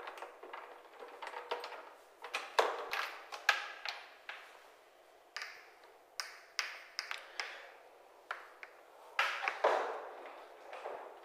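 A string of irregular sharp clicks and knocks, some with a short ring, from a UPVC wardrobe being handled: its doors, latches and lock opened and shut.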